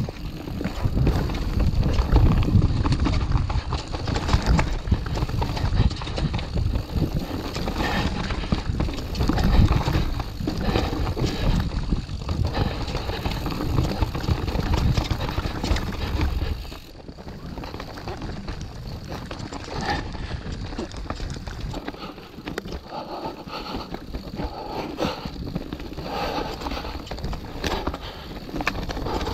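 Mountain bike descending a wet dirt trail: tyres rolling over mud, roots and rocks with the bike rattling and knocking, under a heavy low rumble that drops away about two thirds of the way through, leaving a quieter rattle of the bike.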